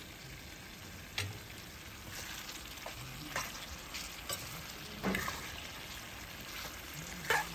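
Chicken and green capsicum sizzling in a steel wok while being stirred with a spatula, with a handful of sharp scrapes and knocks of the spatula against the pan.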